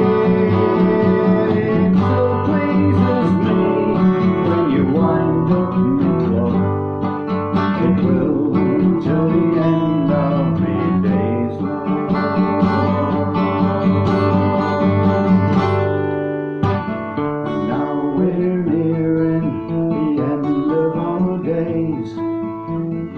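Acoustic guitar playing an instrumental break between verses of a folk song. It eases off about two-thirds of the way through, the low notes dropping away.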